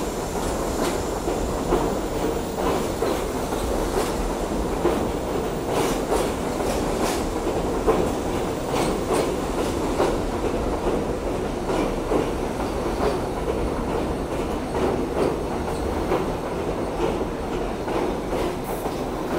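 New York City subway train running past close alongside the platform: a steady rumble with a stream of quick clicks as the wheels pass over the rail joints.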